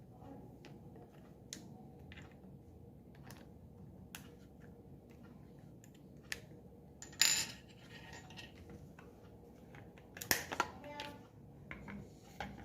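Small metal parts clinking on a hard surface amid scattered light clicks and taps. There are two louder clinks with a short ring, about seven seconds in and about ten seconds in.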